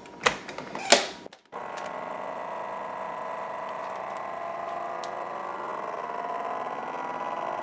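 FoodSaver V2240 vacuum sealer: the lid is pressed shut with two clicks, then its vacuum pump runs with a steady hum, drawing the air out of the bag so that it shrinks tight around the frozen bread.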